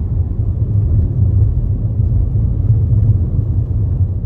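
Steady low rumble of a car driving on a snow-covered road, heard from inside the cabin: tyre and engine noise.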